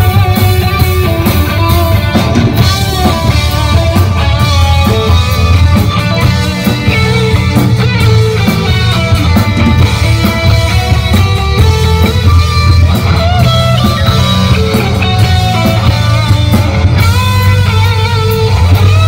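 Rock music led by guitar, playing steadily.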